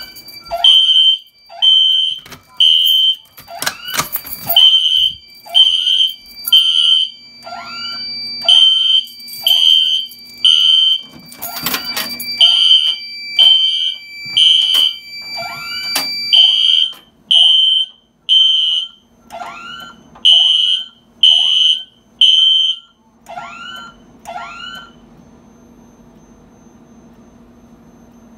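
Fire alarm horns sounding the temporal-three evacuation pattern, three blasts then a pause, over and over. Each blast rises in pitch at its start. They are set off by a manual pull station on a Notifier NFW-50 panel. A steady high tone runs beneath them until about two-thirds of the way in, and the horns stop near the end as the alarm is silenced.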